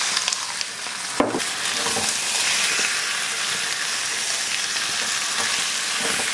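Raw pork shoulder sizzling in hot oil with garlic and onion in a nonstick wok, a steady hissing sizzle as it is stirred with a silicone spatula. A single knock sounds about a second in.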